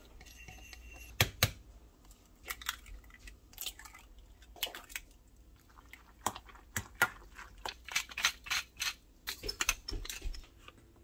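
Utensils tapping and clicking against dishes: many short, light, irregular clicks, coming thicker in the second half.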